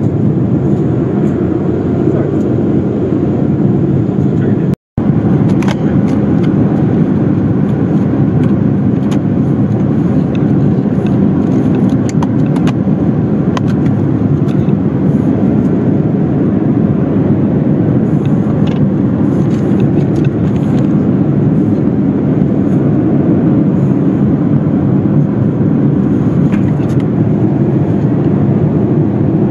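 Steady cabin noise of a Boeing 787-9 airliner in cruise: an even, low rush of airflow and engines. It cuts out for an instant about five seconds in, and faint clicks and rustles of hands in the seat pocket come through it later.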